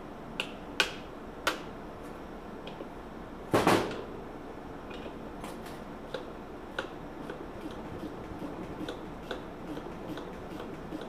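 Metal hand tools clinking and knocking on engine parts: a few sharp clanks in the first couple of seconds, a louder clatter about three and a half seconds in, then scattered light ticks.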